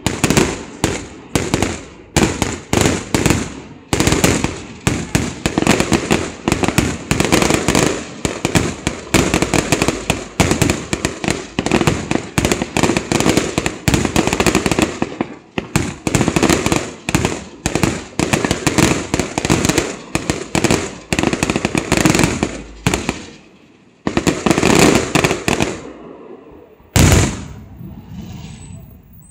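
Fireworks display: a rapid, dense barrage of aerial shell bursts, many bangs a second, easing into a short lull, then a few more bursts and one heavy bang near the end.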